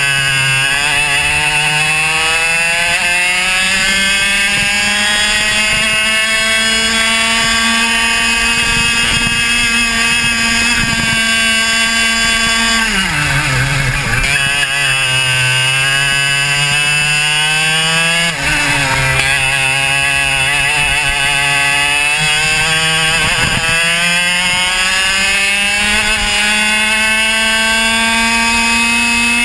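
Easykart racing kart's two-stroke engine at full throttle, its pitch climbing steadily, then dropping sharply for a corner about halfway through and twice more, briefly, before climbing again.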